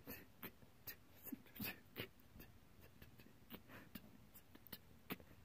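Near silence broken by faint, irregular clicks and brief scratchy rustles, a few to the second.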